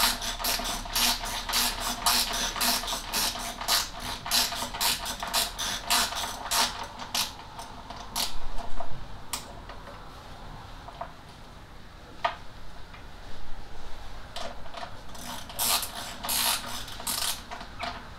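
Ratchet spanner clicking as it is swung back and forth on a nut, in rapid runs of three or four clicks a second with a pause about halfway through. The ratchet is set the wrong way round, so it is not tightening the nut.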